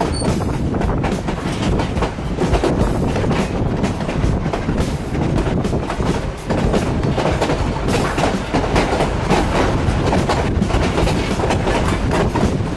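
Narrow-gauge passenger coach running along the track, wheels clacking over the rail joints with steady rumble and rush of air, heard at an open coach window.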